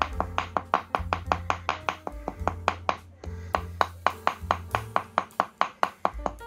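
Knife blade cutting rapidly into a firm block of homemade fish bait, short sharp strokes about five a second, with background music's steady low notes underneath.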